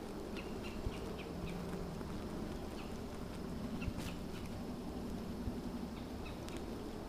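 Outdoor ambience with scattered short bird chirps over a low, steady rumble, and a couple of sharp clicks, one near the start and one around the middle.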